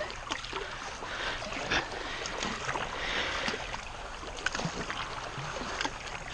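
Paddle-board paddles dipping and splashing in lake water, with irregular short splashes over a steady watery hiss.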